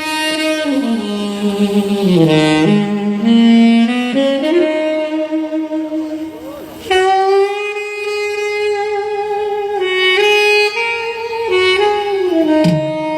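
Saxophone playing a slow melody of long held notes, as recorded music played back over a sound system.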